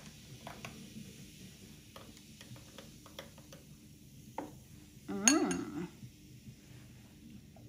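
Metal straw stirring drinks in cut-glass tumblers, with faint scattered clinks against the glass. About five seconds in, a brief, louder vocal sound with a bending pitch.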